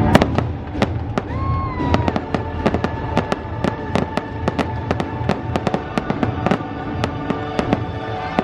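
Fireworks popping and crackling in quick succession over show music, with a short gliding whistle about a second and a half in.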